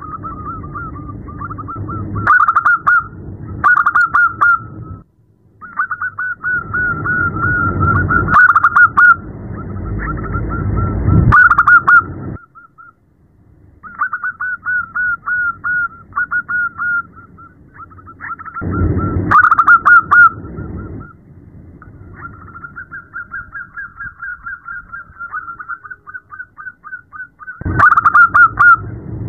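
Zebra dove (perkutut) cooing in phrases of rapid, staccato notes with short pauses between phrases and several louder bursts. It is offered as a female's call to draw a male and set caged birds singing.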